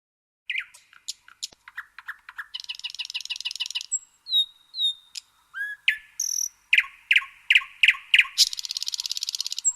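A songbird singing a varied song of rapid trills, short whistled notes and a string of about six loud chirps, ending in a fast buzzy trill. It starts about half a second in and cuts off suddenly near the end.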